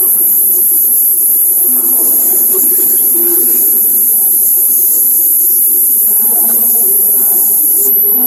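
Steady, loud high-pitched electronic hiss from the sound feed, with faint indistinct background sound of the hall underneath.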